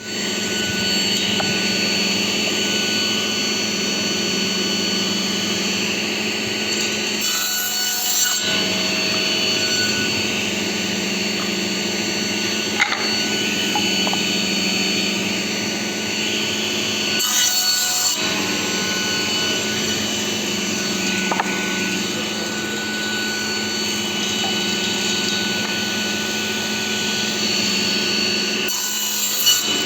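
A woodworking power tool running steadily on wood, with a constant motor hum. Three times, about every ten seconds, the hum drops briefly and gives way to a hiss.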